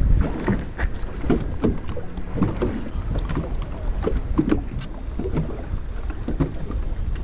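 Water slapping and splashing against the hull of a sailboat under way, in irregular splashes, over a low steady rumble of wind on the microphone.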